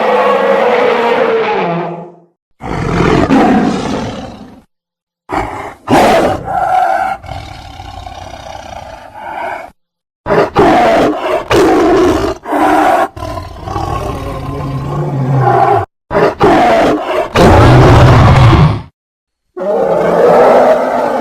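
A series of dinosaur-style roars and growls for a fictional Allosaurus, played as separate sound-effect calls of one to several seconds each with brief silent gaps between them.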